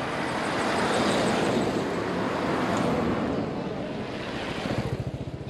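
A car passing on the road close by: tyre and engine noise swells to a peak about a second in and fades away over the next few seconds.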